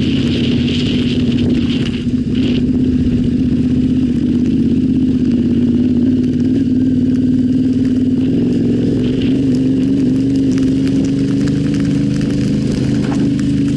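Yamaha Ténéré 700's parallel-twin engine running steadily while the motorcycle is ridden off-road, its pitch holding level and rising slightly near the end. Scattered small ticks and clicks sound over it.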